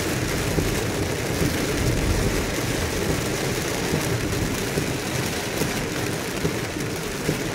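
Steady noise of a car driving through heavy rain on a wet highway, heard from inside the cabin: rain on the car body and tyres on the wet road, with a few faint ticks of drops.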